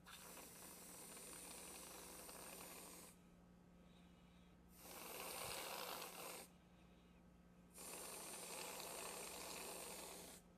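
Aerosol can of vodka-infused whipped cream spraying in three long hissing bursts, the cream being dispensed as a topping.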